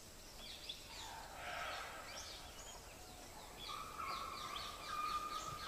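Faint forest ambience with many short, high bird chirps and calls. A steady held note joins about two-thirds of the way in.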